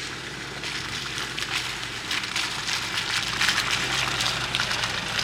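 Nissan Navara pickup creeping up a wet dirt track, its tyres crackling over mud and through puddles over a low engine hum. It grows louder as it nears.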